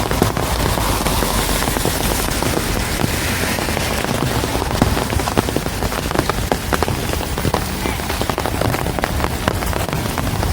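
Steady rain falling on a street, with many sharp individual drop hits standing out from the even hiss.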